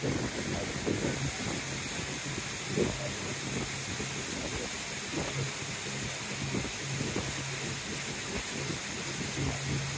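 Shuttle boat under way on a lake: a low, steady engine hum beneath a constant hiss of wind and rushing water.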